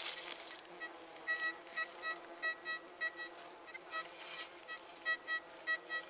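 Metal detector giving a weak target signal: short beeps repeating in irregular clusters. A short rustle comes first.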